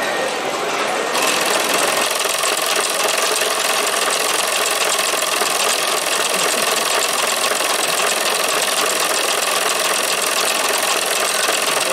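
Toy live-steam stationary engine running fast from about a second in: a rapid, even chuffing of the piston over a steady hiss of steam.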